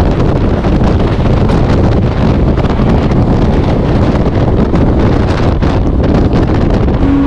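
Wind rushing over the microphone, mixed with the running noise of a Mumbai fast local electric train at speed; loud and steady, with no change.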